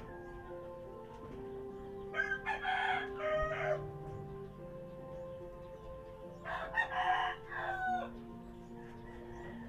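A rooster crowing twice, each crow about a second and a half long and ending on a falling note, over soft background music with long held notes.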